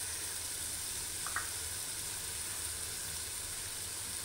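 Onion-tomato spice paste, with turmeric and chilli, sizzling in hot oil in a large kadai as the masala is fried down. It is a steady frying hiss, with one short clink about a second in.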